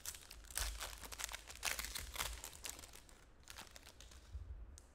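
Foil trading-card pack wrapper crinkling and tearing as it is pulled open. It makes a dense run of crackles that thins out after about two and a half seconds.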